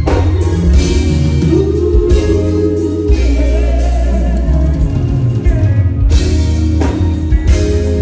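Music from a band with drum kit and guitar, and a voice holding long, wavering notes.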